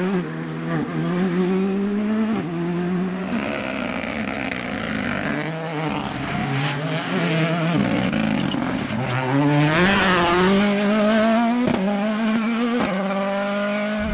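A rally car's engine revving hard under acceleration. Its pitch climbs and falls back at each gear change, over and over. About twelve seconds in there is a single sharp crack.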